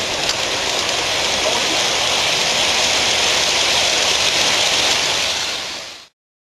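Steady hiss of a gauge 1 live-steam locomotive as its train of hopper cars rolls past, fading and then cutting off about six seconds in.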